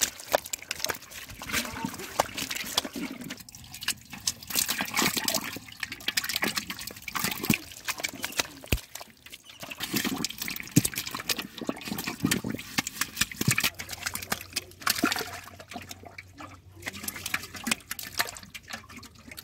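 Catfish thrashing in shallow muddy water: irregular wet splashes and slaps, with frequent short clicks.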